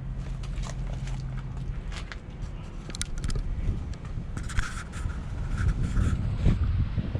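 Low rumble of wind on the microphone, with scattered scrapes and clicks of handling. A low steady hum stops about a second and a half in.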